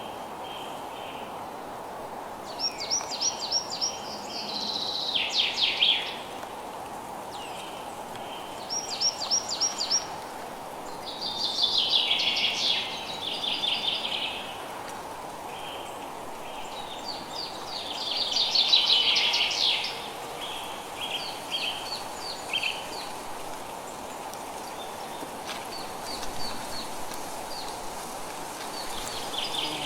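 Songbird singing, a phrase of rapid repeated high notes every few seconds, some phrases ending in a downward sweep. A steady, even hiss runs underneath.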